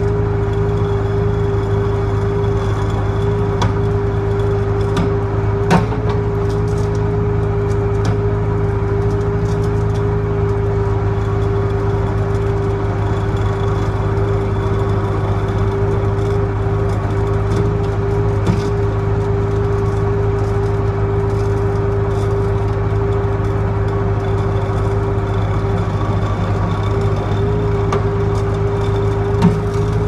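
Skid steer engine running at a steady speed with a constant hum, driving a small hydraulic winch that is pulling in a log. A sharp click sounds about six seconds in and again near the end.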